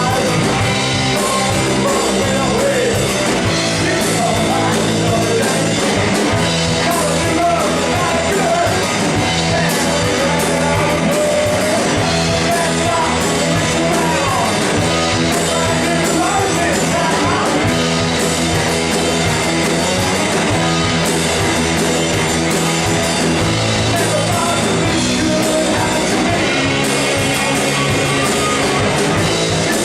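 Live punk rock band playing loud and unbroken, with a singer over full-band instruments.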